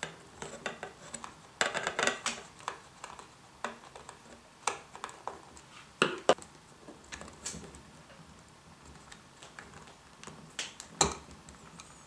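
Torx screwdriver undoing the battery-cover screw on a Fluke 123 ScopeMeter, then the plastic cover lifted off and handled: scattered small clicks and knocks.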